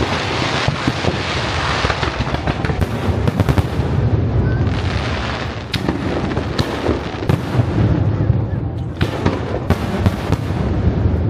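Fireworks going off in a fast, continuous string of bangs and crackles.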